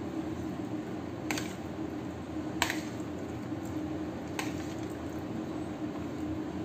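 Metal fork and spoon clinking against a ceramic plate while tossing penne pasta: three sharp clinks, the second loudest, over a steady low hum.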